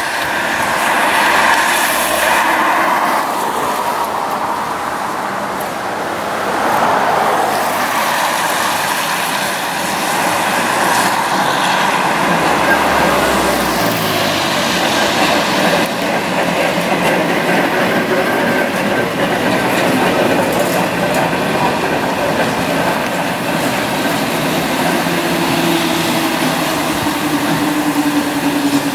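Historic tram, Große Berliner Straßenbahn motor car 2990 with its trailer, rolling along street track: wheels running on the rails, mixed with passing car traffic. Near the end a steady whine comes in, falling slightly in pitch.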